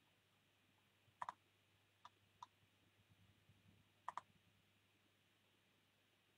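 Computer mouse clicking against near silence: a double click about a second in, two single clicks around two seconds, and another double click about four seconds in.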